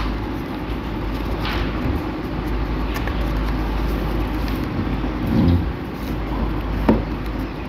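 A sheet of paper being folded and creased by hand on a wooden tabletop: a few short crinkles and taps over a steady low rumble that swells briefly past the middle.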